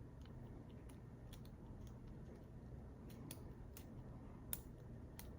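Faint, scattered clicks of lock picks working inside a PacLock 90A-Pro padlock, a handful of light ticks with the sharpest about four and a half seconds in, over a low steady hum.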